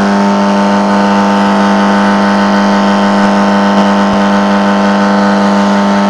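ARB bearing induction heater humming loudly and steadily while it heats a bearing on its yoke, near the end of its heating cycle.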